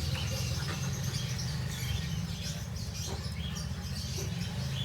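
Scattered short, faint high chirps and squeaks from small caged animals over a steady low rumble.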